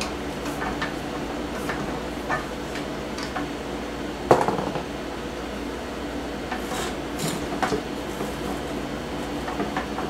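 Metal parts of an old photo enlarger being handled on a workbench: scattered light clinks and knocks, one louder knock about four seconds in, and a quick run of clinks a little later, over a faint steady hum.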